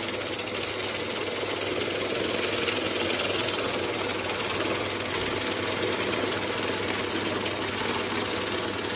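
A machine running steadily, an even mechanical whir and rattle with a constant low hum.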